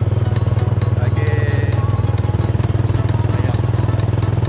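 Mini train's engine running steadily under way, a low throb with a rapid, even pulse.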